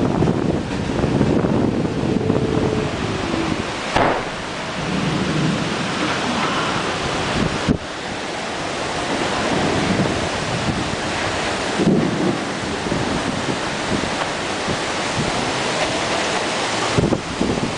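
Stormy wind and rain rushing loudly across the microphone, with a few sharp knocks roughly every four seconds.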